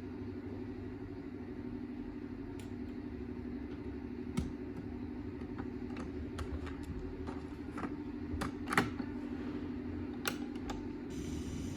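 A steady low electrical hum with scattered sharp clicks, the loudest about four and nine seconds in, as hi-fi gear is switched and handled before playback.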